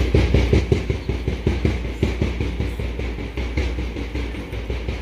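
Parade drums beating a quick, steady rhythm, about six strokes a second, that gradually fades.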